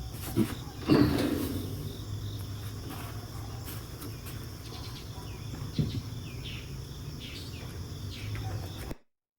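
Crickets chirring steadily in the background, with a few knocks and clinks as metal grill parts are handled; the loudest knock comes about a second in. The sound cuts off suddenly near the end.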